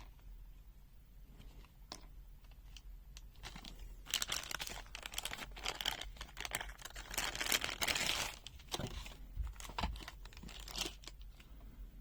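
Packaging crinkling and rustling as it is handled, thickest from about four to nine seconds in, with scattered light clicks before and after.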